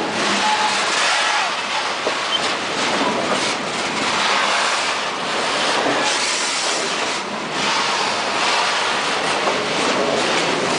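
Loaded freight train of covered hopper wagons rolling past at close range: the steady noise of steel wheels running over the rails, with the wagons rattling.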